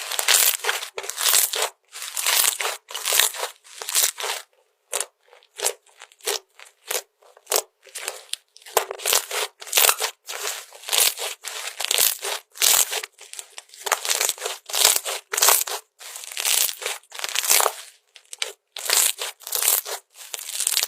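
Slime being squeezed and pressed by hand, a quick run of short squishing and crackling sounds, two or three a second with brief gaps between.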